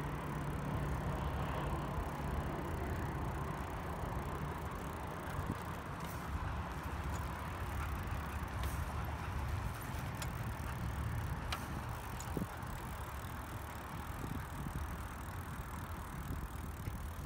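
Bicycle rolling along a concrete path: a steady rumble of tyres and wind, with a few sharp clicks and rattles in the middle.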